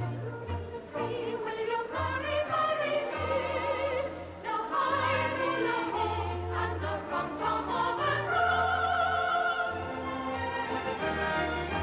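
Group of singers performing a song together, with wavering voices held on long notes over sustained low instrumental accompaniment.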